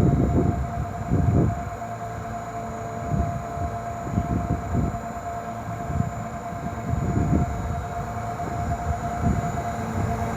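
Hitachi electric fan motor running with a steady whine over an uneven low rumble that swells and fades every second or so: the noise of a poor-quality motor bearing, a common fault in these fans.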